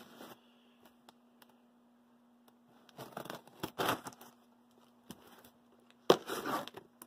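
A cardboard shipping box wrapped in tape and plastic being handled, with rustling around three to four seconds in. About six seconds in comes a sharp click and a short scrape as a hobby knife slits the packing tape along the top.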